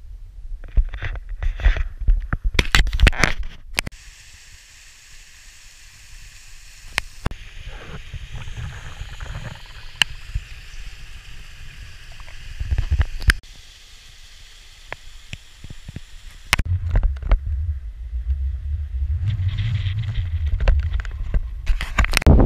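Wind buffeting a small camera microphone in uneven gusts of low rumble, with scattered clicks and rubbing from the camera being handled.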